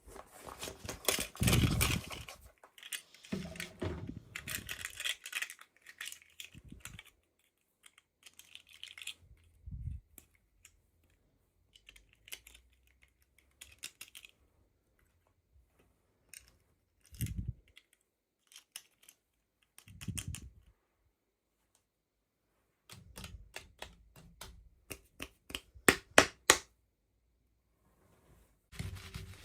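Hands handling toy packaging and small plastic doll pieces: scattered clicks, taps and rustles with quiet gaps between, and a run of sharp clicks near the end.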